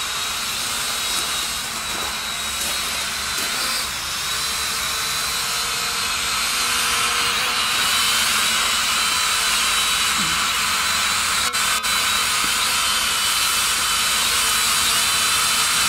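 Small quadcopter drone flying, its propellers giving a steady high-pitched buzzing whine with faint wavering tones. It gets somewhat louder about seven seconds in.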